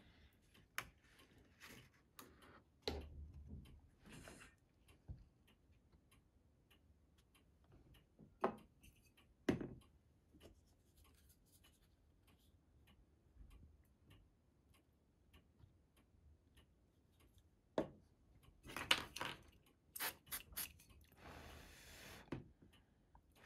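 Faint handling noises of hands working on a plastic ship model: scattered clicks and taps of plastic parts, spring clamps and a glue bottle, with a quick run of sharper clicks and a brief rustle near the end.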